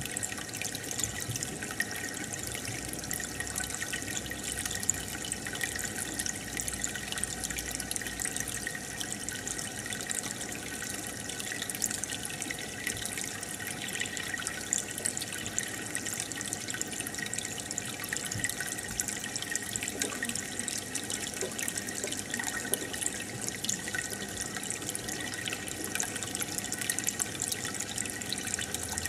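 Steady trickling and splashing of water circulating in a home aquarium.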